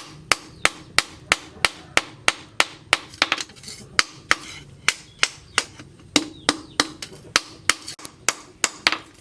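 Blacksmith's hand hammer striking the steel of a knife blade forged from a tractor plough disc on an anvil, in a steady rhythm of about three blows a second.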